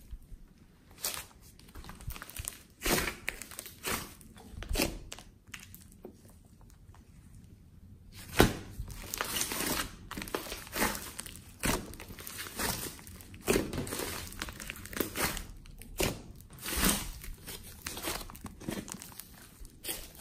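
Big soft slime being kneaded and squeezed by hand on a tabletop, giving irregular sticky pops and crackles. The pops are sparse at first and come thicker and faster from about eight seconds in.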